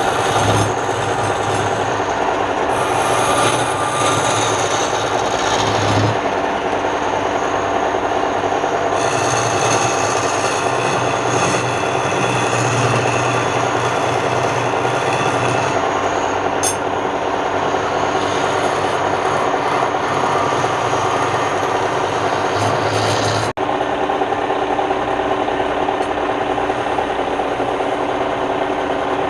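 Wood lathe running with a turning tool cutting the spinning wood, a loud steady machine sound with a cutting hiss that comes and goes, broken once by a brief drop about three-quarters of the way through.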